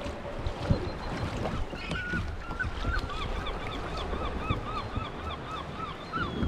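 A bird calling in an even series of short, rising-and-falling notes, about three or four a second, starting about two seconds in and running on. Wind and water noise lie underneath.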